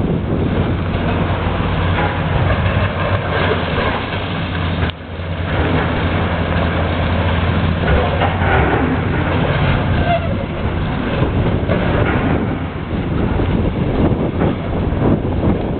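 Diesel engine of a demolition excavator running steadily under load, with rough clattering noise over it; the sound briefly drops about five seconds in.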